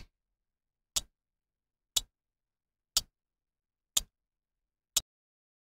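Clock-tick sound effect for a countdown timer: six sharp, short ticks, one each second, counting down the seconds left to answer.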